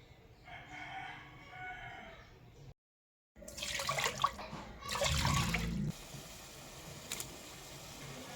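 A rooster crows faintly in the background for about two seconds. After a brief cut to silence, water rushes and splashes loudly for about two and a half seconds, then stops.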